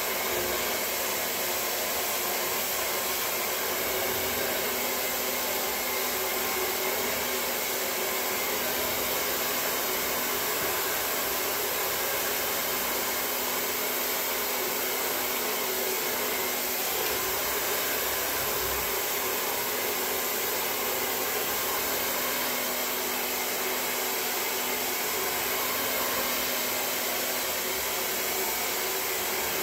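Handheld hair dryer running steadily, blowing air.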